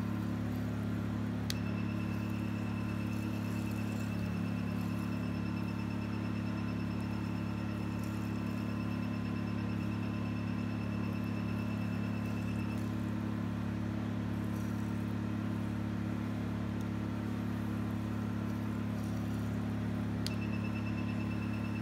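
Forimi FMD-II 808 nm diode laser hair removal machine: its cooling system hums steadily, and a rapid high-pitched beeping sounds while the handpiece fires. The beeping starts with a click about a second and a half in, stops about halfway through, and starts again with a click near the end.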